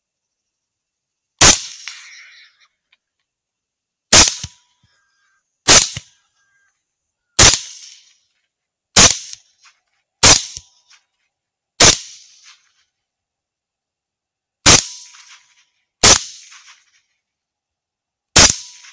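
Ten rifle shots from a 6.5 Creedmoor fired in quick succession, one every one to three seconds, each a sharp crack with a short fading tail.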